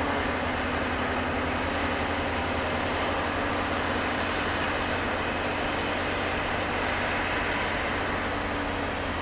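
DB Class 628 diesel multiple unit rolling slowly past, its diesel engine running with a steady low drone.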